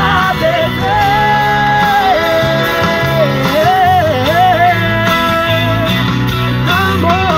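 A man singing a worship song in long held notes that waver in pitch, over a steady instrumental accompaniment.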